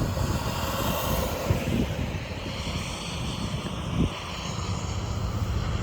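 Low, steady rumbling roar of a strong tornado, mixed with wind, with a brief thump about four seconds in.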